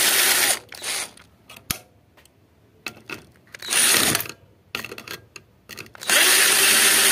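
Cordless drill-driver spinning in short bursts as it unscrews the terminal screws holding the wire lugs on an inverter welder's capacitor board. There are three main bursts, the last the longest, with a brief blip about a second in.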